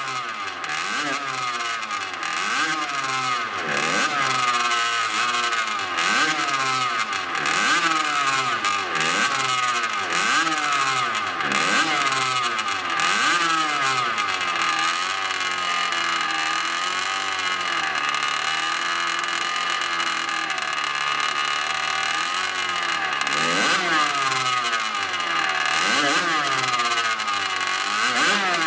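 Tomos D-9 racing motorcycle's small air-cooled two-stroke engine running on the stand and being revved in repeated blips, the pitch rising and falling every second or two. About midway it holds at a steadier, lower speed for a few seconds before the blips resume.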